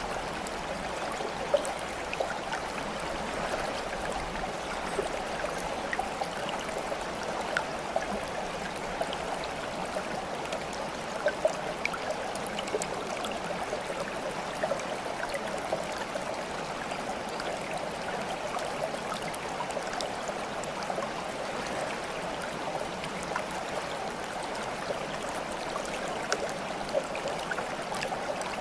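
Steady running water like a stream, with small trickling splashes and droplet ticks scattered throughout.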